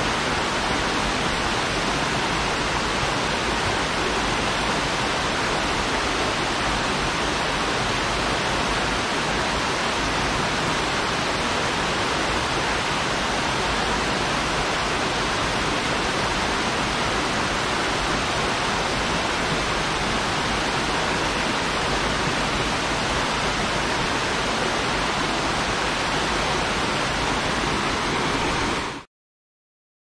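Waterfall rushing steadily, heard from close by at the top of the drop. The sound cuts off abruptly about a second before the end.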